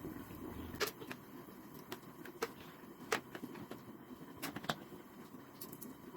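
Pot of seasoned meat cooking on the stove: a steady low bubbling noise with scattered sharp clicks and pops.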